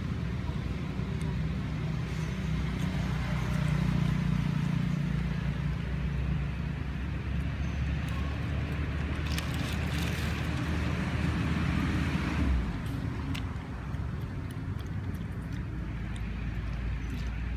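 Low, steady engine hum of a motor vehicle running, swelling a few seconds in and dropping off abruptly about twelve seconds in, with a few faint clicks over it.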